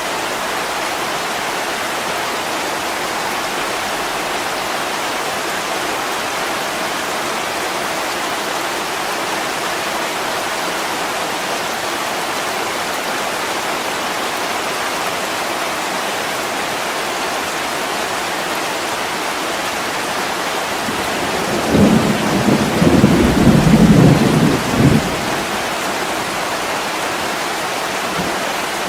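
Steady heavy rain against a window, with a low roll of thunder lasting about three seconds near the end.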